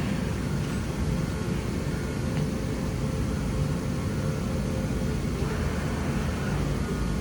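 Steady low rumble of running machinery with a faint steady hum above it.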